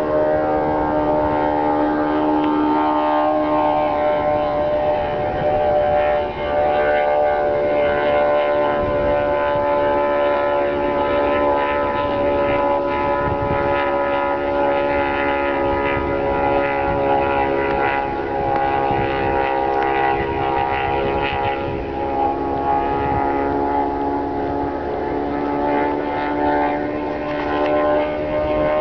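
Propeller engine of a single-engine homebuilt light aircraft in flight overhead, a steady drone with a stack of tones whose pitch wavers slightly.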